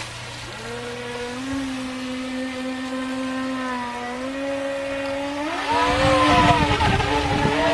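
Feilun FT011 RC speedboat's brushless motor whining at a steady pitch. The pitch steps up about four seconds in, then climbs and gets louder a second or two later with a rushing noise underneath as the throttle opens.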